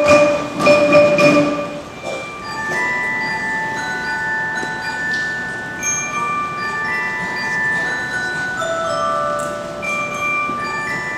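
Students playing tabletop mallet instruments, glockenspiel- and xylophone-type bars struck with mallets, in a slow melody of clear notes that ring on and overlap. The first second or two is louder and busier before the playing settles into the slower ringing line.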